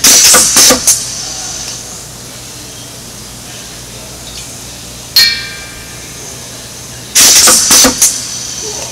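Pneumatic tabletop filling machine cycling twice: each cycle is a burst of air hissing from its valves, about a second long, in several quick puffs. Between the two cycles comes a single sharp metallic click with a short ring.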